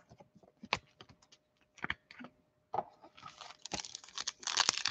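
A few light clicks and taps, then from about three seconds in a dense crackle of foil trading-card pack wrappers being handled and crinkled.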